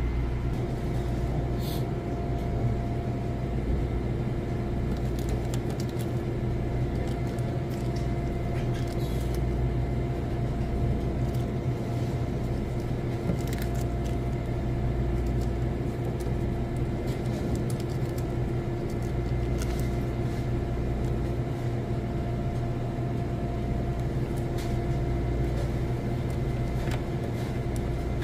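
Steady low machine hum with a few steady tones in it, unchanging throughout. A few faint taps and clicks come from small plastic bearings and a screwdriver being handled on a steel counter.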